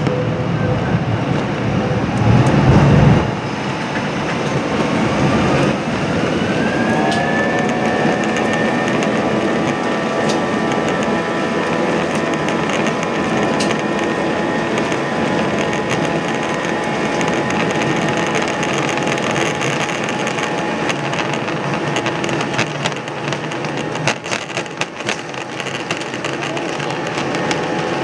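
Airliner's jet engines heard from inside the cabin spooling up to takeoff thrust, a whine rising in pitch for a few seconds and then holding steady over a loud rumble, as the jet accelerates down the runway. After a loud low rumble in the first three seconds, light cabin rattles and clicks come in during the later part of the takeoff roll.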